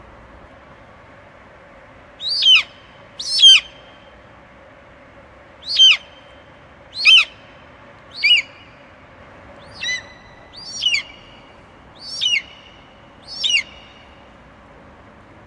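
An eagle calling in a series of nine short, high, shrill screeches, each dropping sharply in pitch, spaced a second or so apart from about two seconds in, over a faint steady hiss.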